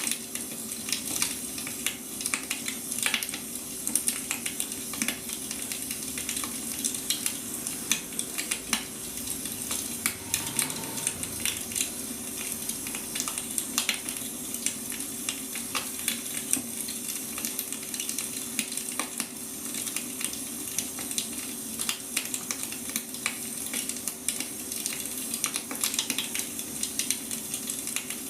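Wood fire crackling, with frequent irregular pops and snaps over a steady hiss, and a faint steady hum underneath.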